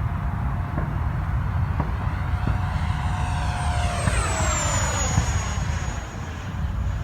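Freewing T-33 electric ducted fan model jet flying past: its fan whine drops in pitch about four to five seconds in as it goes by, over a steady low rumble.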